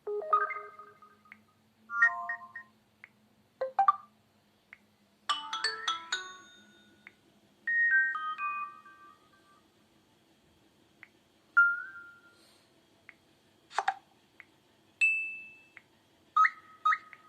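LG Leon phone playing a string of short message and notification tones one after another: about a dozen brief chimes, beeps and quick rising jingles, each a second or less, with short pauses between them.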